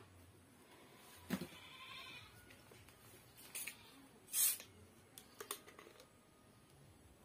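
Plastic Coca-Cola bottle's screw cap being twisted open: a few clicks, then a short loud hiss of escaping carbonation about four and a half seconds in, followed by small clicks of the cap.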